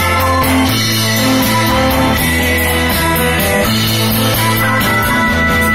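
A live rock band plays with electric guitars, keyboard, bass and a drum kit. Held chords sit over a bass line that moves every second or so, with steady cymbal strokes keeping the beat.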